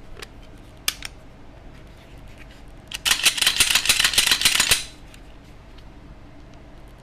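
Glock 19 Gen 4 slide being fitted back onto the pistol frame, metal on metal: a sharp click about a second in, then nearly two seconds of rapid metallic clicking and scraping as the slide rides onto the frame rails.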